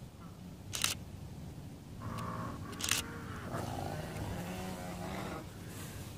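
Two sharp clicks about two seconds apart, then a few seconds of wavering, wheezy vocalizing from a maned wolf fending off the others at food.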